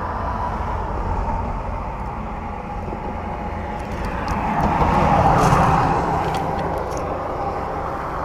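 A car passing on the adjacent roadway, its tyre and engine noise swelling to a peak about five seconds in and then fading, over a steady low traffic rumble.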